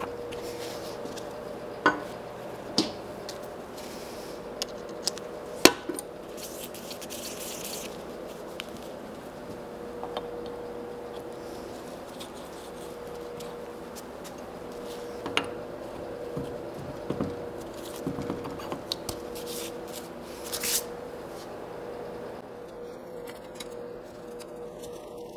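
Metal parts of an old DoAll drill press head clinking and clicking as they are fitted back together by hand: a few sharp metallic clicks scattered among quieter handling noise, over a steady faint hum.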